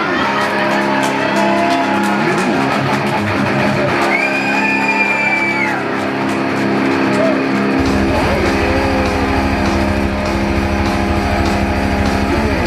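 Instrumental rock music on guitar: sustained chords, with a held lead note that bends up and back down about four seconds in. A deep bass part comes in about eight seconds in.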